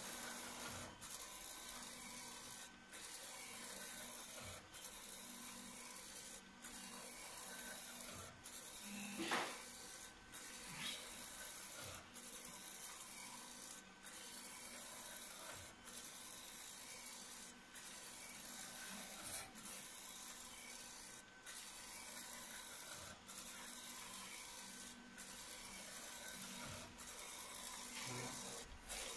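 ArtisJet UV flatbed printer's print-head carriage sweeping back and forth over the bed, a faint steady hissing, sliding noise that dips briefly about every two seconds as the carriage reverses, over a low steady hum. A single louder noise stands out about nine seconds in.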